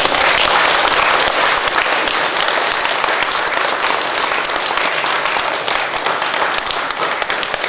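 Audience of several dozen people applauding, many hands clapping at once. The applause starts sharply and stays steady.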